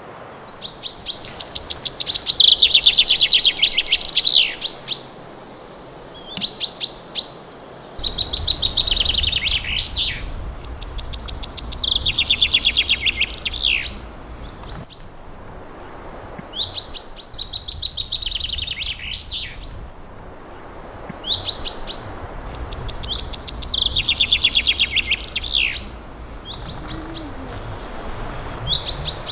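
Common chaffinch singing: a quick run of notes falling in pitch and ending in a flourish, repeated several times about every five seconds, with a few short single notes between songs.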